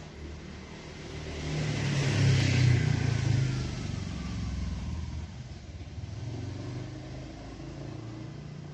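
A motor vehicle driving past: its engine and road noise swell to a peak a couple of seconds in, with a falling whine as it goes by, then fade to a low rumble.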